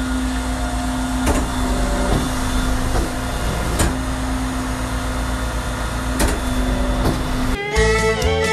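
Western Star semi truck running steadily while driving, heard from inside the cab: a low rumble with a steady drone and a few sharp clicks. About seven and a half seconds in it cuts to country music with fiddle and guitar.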